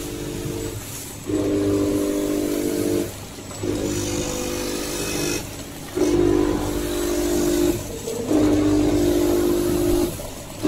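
Vertical sachet packing machine running through its packing cycle: a humming motor tone switches on for about a second and a half, stops briefly, and comes back again roughly every two and a half seconds, over a steady low machine hum.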